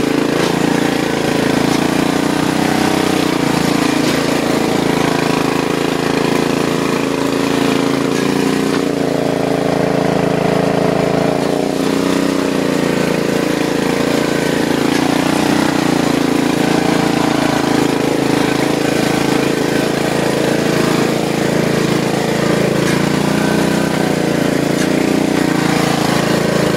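Riding lawn mower engine running loud and steady while it is driven through mud, its note dipping and rising a few times as the load changes.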